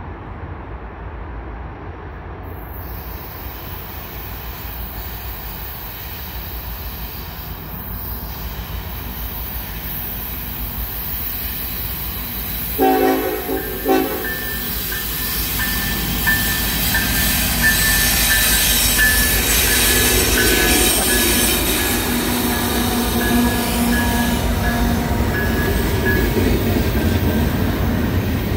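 Freight train led by an EMD SD70ACE and a GE ES44AC diesel-electric locomotive approaching and passing, its rumble building steadily. About halfway through the lead locomotive's horn gives two short blasts. As the string of container cars rolls by, a steady high wheel squeal rides over the wheel noise.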